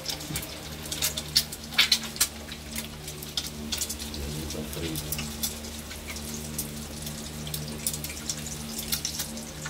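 An egg frying in hot oil in a small pan: irregular sharp crackles and pops, thickest about one to two seconds in. A steady low hum runs underneath.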